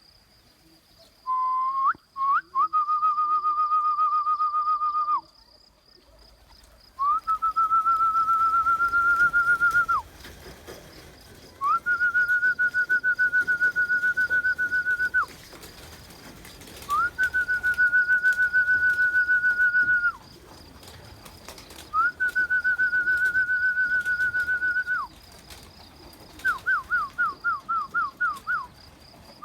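Whistling used as a recall signal for pigeons, calling them into the loft: five long warbling whistles of about three seconds each, then a quick run of short falling whistles near the end.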